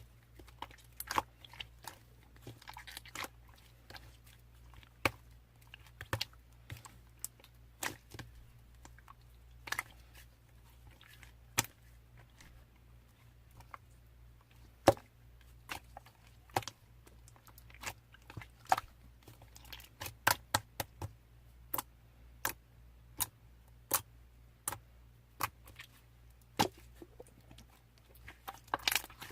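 Slime being squeezed and worked by hand, giving sharp, irregular clicks and pops, one to several a second and busier in the second half. A faint steady low hum lies underneath.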